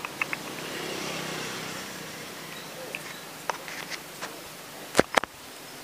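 A motor vehicle's engine noise swells and fades over the first two seconds, then come a few scattered clicks and two sharp knocks close together about five seconds in.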